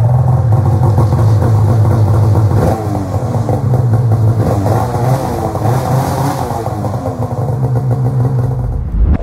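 Polaris Patriot Boost snowmobile's turbocharged two-stroke engine running loud through an HPS aftermarket muffler, its pitch rising and falling as it revs.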